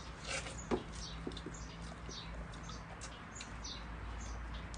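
Faint chirping of small birds, short high-pitched chirps repeating irregularly, with one soft knock just under a second in.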